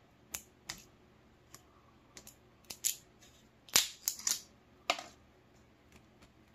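Small plastic clicks and ticks from fingers working the dropper cap of a glass beard-oil bottle, an irregular string of them with the loudest a little past the middle.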